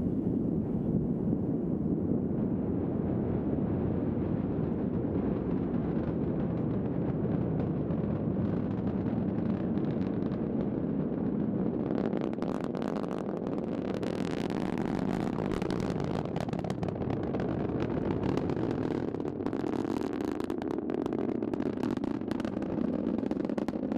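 Distant SpaceX Falcon 9 launch: the nine Merlin engines of the first stage make a steady low rumble. From about twelve seconds in, sharp crackling pops break in over it and come and go to the end.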